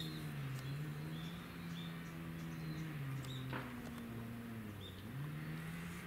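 A low engine drone that slides down in pitch and back up several times. Short high bird chirps come every second or so over it.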